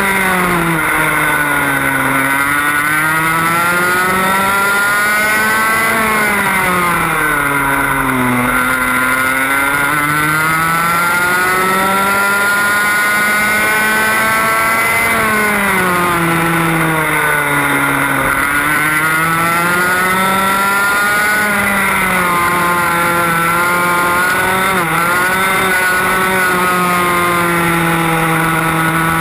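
TAG kart's 125cc two-stroke engine, recorded on board at racing speed. Its pitch climbs along the straights and falls away into each corner, about half a dozen times, settling into a steady high note near the end.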